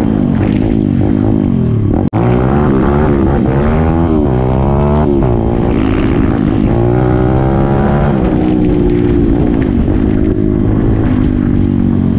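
Pit bike's small single-cylinder four-stroke engine being ridden, its revs repeatedly climbing and dropping as the throttle is worked. The sound cuts out for an instant about two seconds in.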